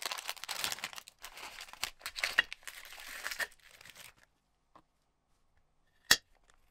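Plastic snack wrapper crinkling and tearing open in rapid rustles for about four seconds, then a single sharp click about six seconds in.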